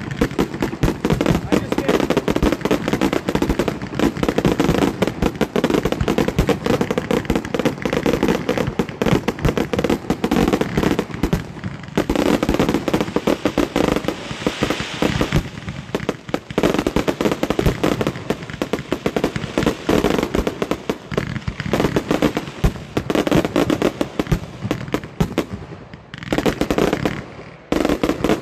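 Aerial fireworks barrage: a dense, rapid stream of shells bursting and crackling, with short lulls about twelve seconds in and again near the end.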